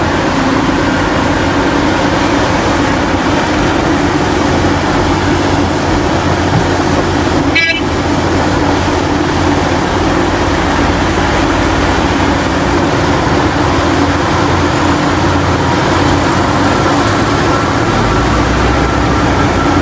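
Heavy diesel mining machinery running steadily under load, a constant low rumble. A single short sharp knock about eight seconds in, and the rumble deepens near the end.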